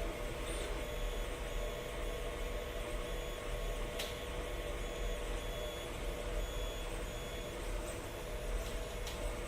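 Monoprice MP i3 Mini 3D printer running: a steady hum from its fan and motors, with short high stepper-motor whines repeating about once a second and a few light clicks.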